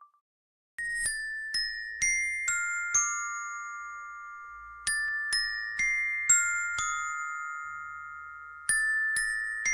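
Song intro: a melody of struck, bell-like glockenspiel notes that ring on and slowly fade. It starts about a second in as a phrase of five or six notes, which repeats about every four seconds.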